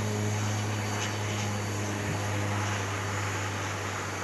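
Propeller airliner taking off, its engines giving a steady, low droning hum.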